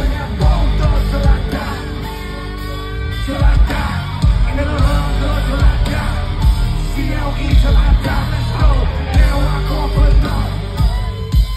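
Live concert music over a PA, heard from the crowd: a heavy bass beat with a lead vocalist singing and shouting over it.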